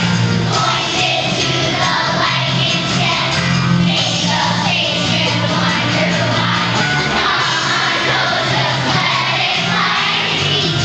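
A vocal group singing together over instrumental accompaniment, with a steady low bass part.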